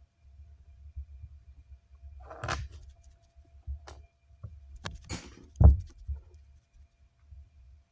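Handling noises on a work surface: a short rustle, a few sharp clicks and a dull thump about two-thirds of the way through, which is the loudest sound.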